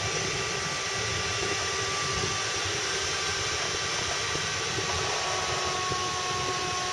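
Land Rover engine running steadily at low speed as the vehicle creeps down a rock slab, under an even steady hiss.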